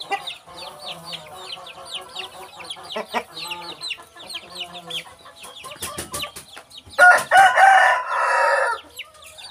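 Chicken-yard sounds: quick high falling peeps, several a second, with a few low clucks, then a rooster crows loudly for about two seconds near the end.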